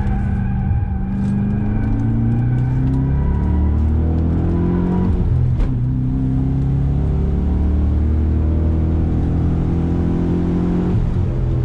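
Holden VE Commodore SS's 6.0-litre V8 heard from inside the cabin, accelerating hard with the revs climbing. About five and a half seconds in there is a quick upshift, the pitch drops sharply, and the engine pulls and climbs again in the next gear.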